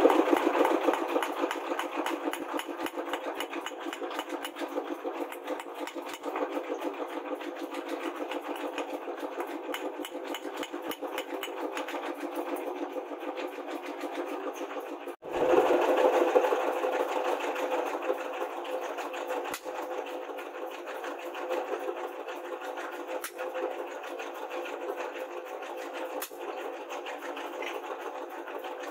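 Forging hammer striking rebar on a steel anvil, a rapid, even metallic clatter. It breaks off briefly about halfway through and comes back louder.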